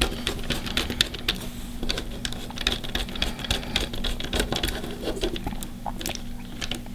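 Irregular light clicks and taps of a screwdriver fitting and turning a small terminal screw on a plastic alarm control panel.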